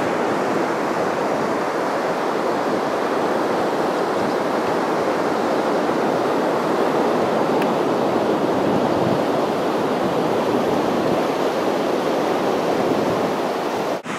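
Steady rush of ocean surf breaking on a beach, mixed with wind on the microphone.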